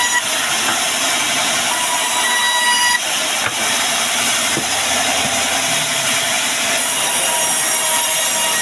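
Band sawmill blade running through a log: a loud, steady rasping hiss with faint whining tones that come and go.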